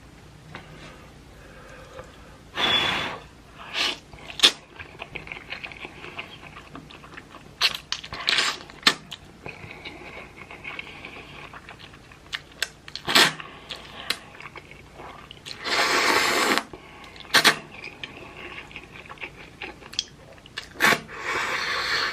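A person eating instant hot chicken ramen noodles: three loud slurps of about a second each, with short wet clicks and chewing between them.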